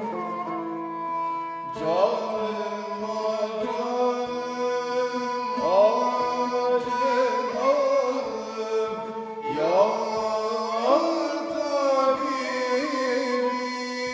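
Ottoman classical music in makam Hicaz, in the yürük semai rhythmic cycle, played on plucked lafta lutes with a bowed kemençe: held notes over repeated plucked strokes, with sliding melodic ornaments.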